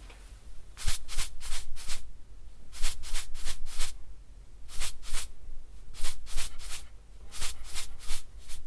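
A salt shaker being shaken in short bursts of two to five quick shakes, with brief pauses between the bursts.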